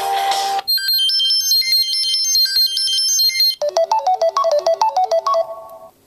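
Samsung Galaxy Note 3 factory ringtones playing one after another from the phone's speaker as each is tapped, each cut off by the next. The first tune stops about a second in. A high, bright plinking melody follows, then, about halfway through, a lower melody of quick separate notes that fades near the end.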